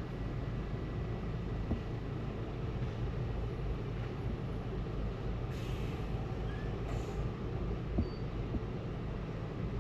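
Buses and traffic rumbling steadily, with two brief hisses of bus air brakes about five and a half and seven seconds in.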